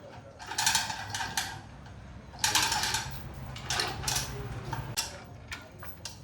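Metal tools and engine parts clinking and clattering in several short bursts of clicks and knocks, the kind of sound made while working on an engine by hand.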